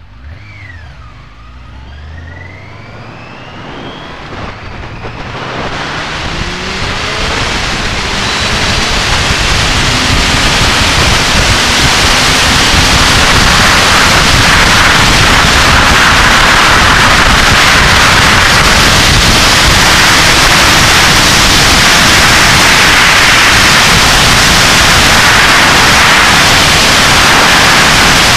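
1999 Yamaha YZF-R6's 600 cc inline-four accelerating hard, its pitch climbing through successive gears in the first few seconds. Then loud, steady wind noise on the microphone builds up and buries the engine at speed.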